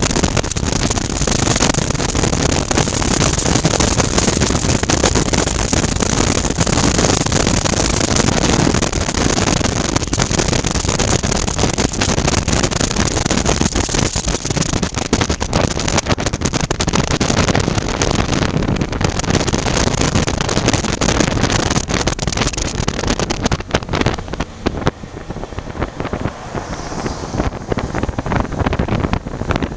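Riding on a 2019 Suzuki V-Strom 650, its 645 cc V-twin engine running under a steady rush of wind over a helmet-mounted camera microphone. The noise eases for a few seconds near the end as the bike slows toward a junction, then picks up again.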